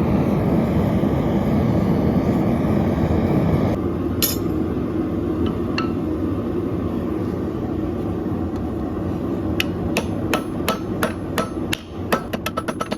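Blacksmith's hammer striking steel on an anvil with a ringing clang: one blow about four seconds in, then blows from near ten seconds that quicken into a fast run of strikes near the end. Before this, a loud steady rush of noise stops about four seconds in.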